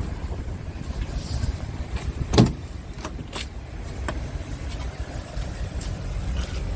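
Truck cab door being opened: one loud clunk about two and a half seconds in, then a few lighter clicks, over a low rumble of wind on the microphone.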